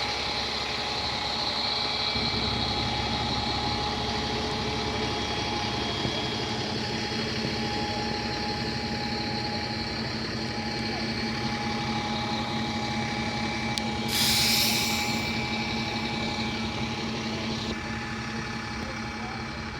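Vehicle engine running steadily, with a short loud hiss about fourteen seconds in.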